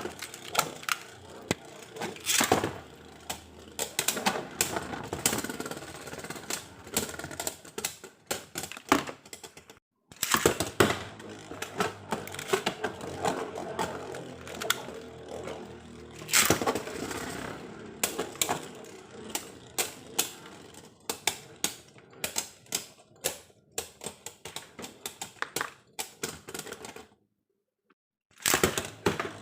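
Irregular plastic clicking and rattling of Beyblade spinning-top parts being handled and fitted together, with dropouts about ten seconds in and near the end.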